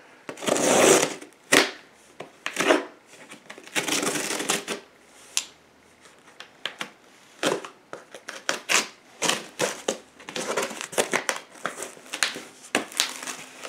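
Scissors slitting the packing tape along the seam of a cardboard shipping box: scraping and tape-ripping noises in several short bursts, then a run of sharp clicks and taps on the cardboard in the second half.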